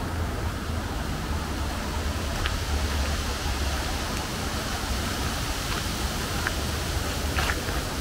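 Outdoor forest ambience: a steady rushing noise with a low rumble, and a few faint footsteps on a forest path, about four scattered steps in the second half.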